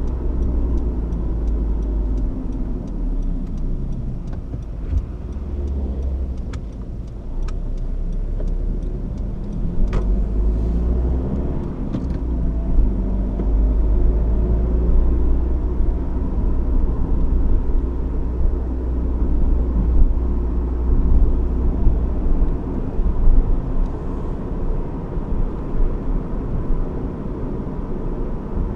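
A 2015 Honda CR-V's 1.6 i-DTEC four-cylinder turbodiesel under way: steady engine drone over a low road rumble, with a few sharp clicks in the first dozen seconds.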